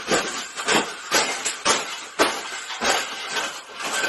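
Wire bird cage being bent and crushed by hand: a string of irregular metal clanks and rattles, about ten in four seconds.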